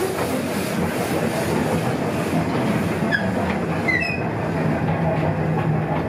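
Small forest-railway train rolling slowly, its open passenger car rattling over the rails. A few short, high metallic squeals come about three and four seconds in, followed by a low steady drone.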